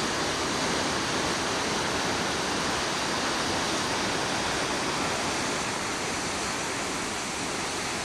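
Steady rush of white water tumbling through a river gorge, an even roar with no breaks.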